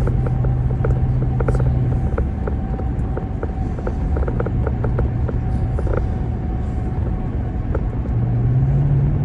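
Car driving at highway speed, heard from inside the cabin: a steady low drone of engine and tyres, with a faint high whine and light scattered ticks from the road surface.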